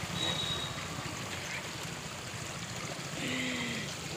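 Steady rush of flowing water, such as a rain-fed stream or runoff channel.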